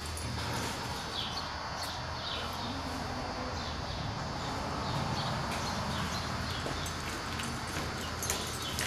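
Cutting horse's hooves stepping and shuffling in soft arena dirt, over a steady low hum.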